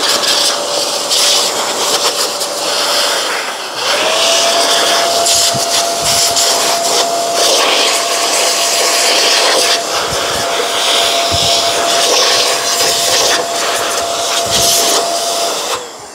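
Handheld electric air blower running steadily, its air rushing through a robot vacuum's plastic dust bin to blow the fine dust off its screen. The motor winds down about three seconds in, starts again a moment later, and cuts off near the end, with a few dull knocks along the way.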